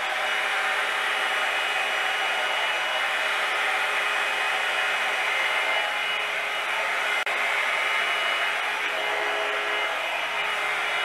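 BaByliss I-Pro Rotating Brush 800 hot-air styling brush running: a steady rush of blown air with a faint, even motor whine.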